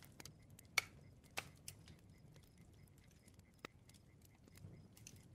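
Campfire crackling faintly, with a few sharp pops scattered among softer crackles.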